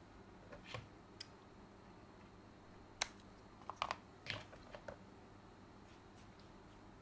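Scattered small, sharp clicks and taps of hand tools on a workbench, the sharpest about three seconds in, followed by a quick cluster of clicks.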